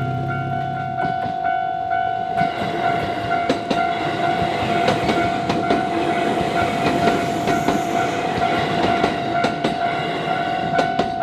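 A JR Sagami Line electric train passing over a level crossing, its wheels clattering in irregular clicks over the rail joints. A steady ringing tone sounds throughout, typical of the crossing's warning alarm.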